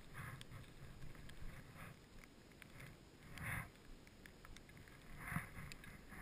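Faint swishes of snowboard and ski edges sliding through fresh snow, about one turn every one and a half to two seconds, over a low hiss.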